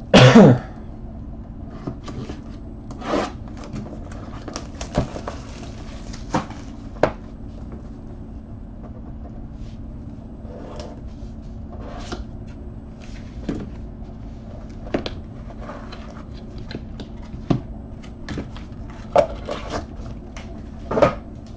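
A blade slitting the seal of a trading-card box, loud and brief at the very start, then scattered knocks, clicks and rubs as the box is opened and handled on the table. A steady low hum runs underneath.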